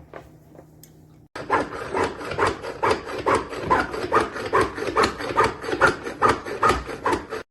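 Rhythmic rubbing strokes, about two and a half a second, starting suddenly about a second in and cutting off abruptly near the end.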